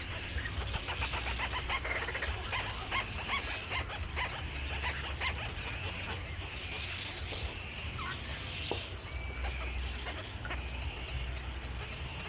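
A flock of birds chirping and chattering, with many quick calls packed close together, densest in the first half, over a low steady hum.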